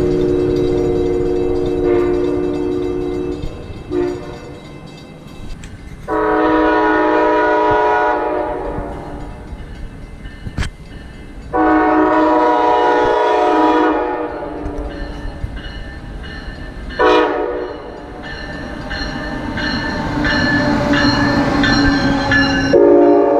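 Amtrak passenger train's locomotive horn sounding a series of long blasts with short toots between as the train approaches. Near the end the train rolls past close by, its wheels running on the rails under the horn.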